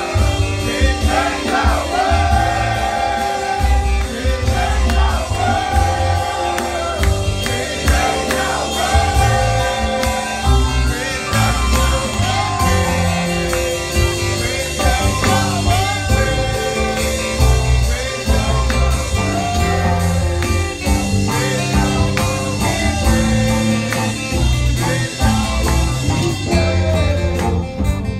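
A group of men singing a song together, accompanied by an electronic keyboard played through a loudspeaker, with a strong, pulsing bass line.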